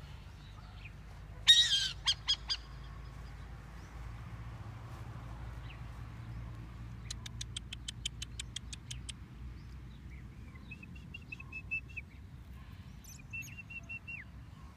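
Burrowing owl calling: one loud harsh call about a second and a half in, then three short sharp notes. Later comes a quick run of about a dozen clicks, and near the end a few short high whistled notes.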